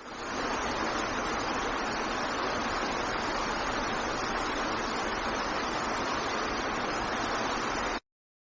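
Steady rush of running water, fading in at the start and cutting off abruptly near the end.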